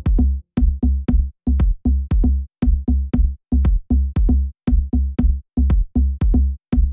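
Electronic background music with a drum-machine beat, its bass and chords chopped into short, regular stabs, two or three a second.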